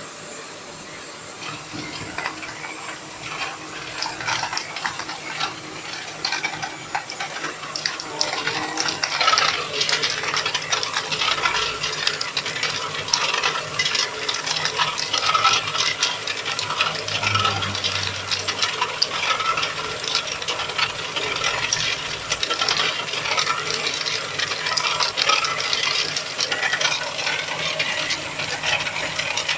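Pieces of tube ice clattering as they drop out of a tube ice machine and pile into a plastic basket. The machine is releasing its batch of ice (the harvest), over a steady machine hum. The clattering starts sparse and becomes dense and continuous about eight seconds in.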